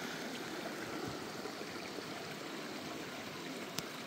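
Shallow creek running over bedrock and stones: a steady rush of water, with one short click near the end.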